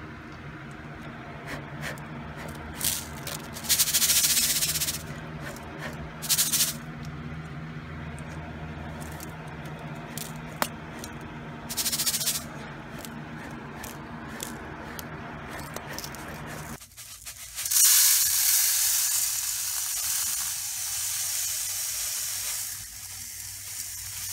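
Dry mustard seeds shifting and rattling in a thin aluminium pan in a few short hissing bursts over a low steady hum, then, after about seventeen seconds, a continuous hiss of the seeds pouring from the pan into a steel bowl on a scale.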